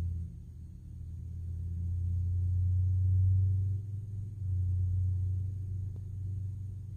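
Low, droning rumble of a car heard from inside, swelling to its loudest about three seconds in, dipping briefly and going on.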